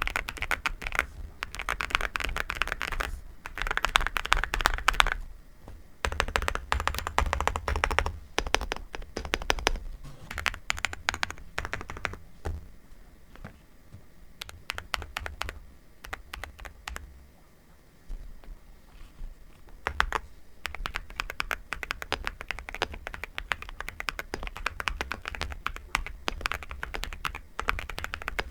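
Typing on a NuPhy Gem 80 mechanical keyboard: fast runs of key clacks, broken by a few short pauses.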